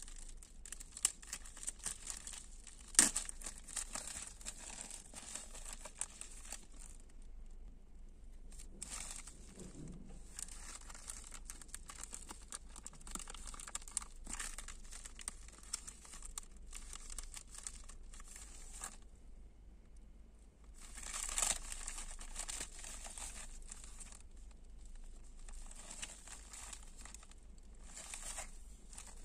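Plastic courier mailer bag crinkling and tearing as it is pulled open by hand, in several stretches with short pauses. A sharp click about three seconds in is the loudest sound.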